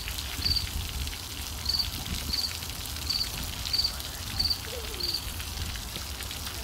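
Water spattering and dripping like rain on a hard surface, with a short, high chirp repeating about every two-thirds of a second.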